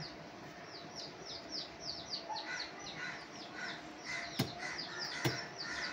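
Small birds chirping continuously, a quick run of short, high, falling notes about three or four a second. Two sharp knocks sound about four and five seconds in.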